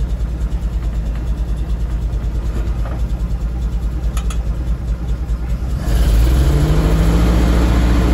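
1961 Willys pickup engine idling with a steady low chug. About six seconds in it is brought up to a faster, louder run and held there, fast enough for the original generator to charge.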